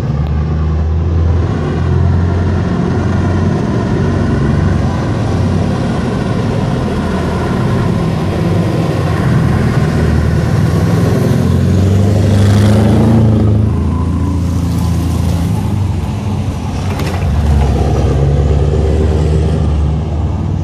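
Scania 164 580's V8 diesel engine running under load as the truck pulls away and drives past, its note rising as it accelerates about twelve seconds in. Brief rushes of noise come with the acceleration and again near the end.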